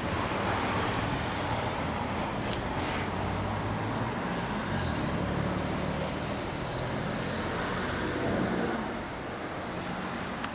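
Kawasaki Vulcan Drifter 400's V-twin running steadily at idle through Marving dual mufflers, with road traffic passing; the sound drops a little near the end.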